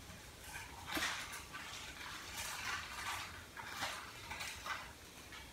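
Thin clear plastic packaging crinkling on and off as a small bag is opened and handled.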